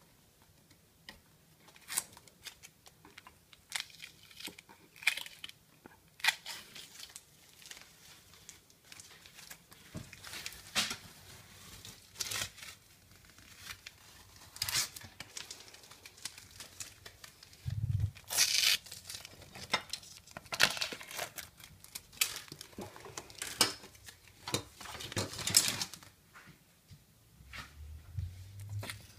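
Irregular run of short tearing and crinkling noises, dozens of quick strokes of varying loudness, starting about a second in.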